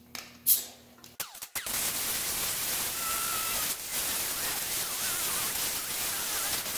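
Electric arc welding on steel angle iron: a sharp click about half a second in, then a steady crackling hiss of the arc from about a second in, broken briefly partway through.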